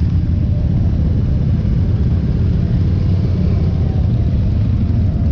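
Many motorcycle engines running together, a steady low rumble with faint rising and falling revs.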